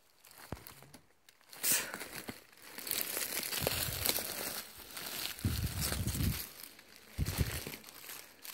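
Dry leaf litter and twigs on a forest floor rustling and crackling irregularly as a hand pushes through them to pick mushrooms, with a few dull low thumps in the second half.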